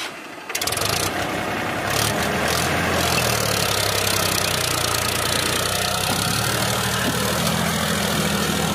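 Powertrac Euro 50 tractor's diesel engine running steadily as the tractor drives through mud, coming in loud about half a second in.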